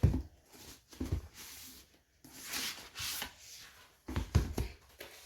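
Packaging and a hardcover book being handled: a few soft thumps as things are set down or knocked, with rustling and sliding of paper or a book sleeve in between.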